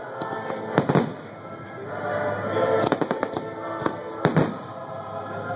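Aerial fireworks shells bursting in a series of sharp bangs, the loudest pair about four seconds in, over the show's background music.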